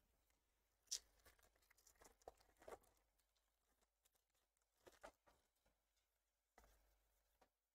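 Near silence broken by faint, scattered light clicks and rustles of trading cards being handled. The sharpest comes about a second in, with a cluster of smaller ones just after and a few more around five seconds in.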